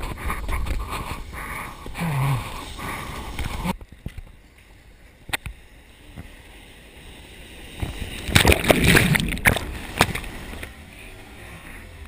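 Ocean shorebreak heard from an action camera in the surf: waves breaking and whitewater rushing and splashing close on the microphone. The loudest burst of crashing water comes about eight to nine seconds in.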